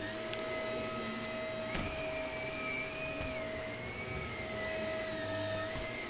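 Upright vacuum cleaner running over carpet, a steady motor hum with a higher whine that wavers slightly up and down in pitch. A couple of small clicks come through, one near the start and one just under two seconds in.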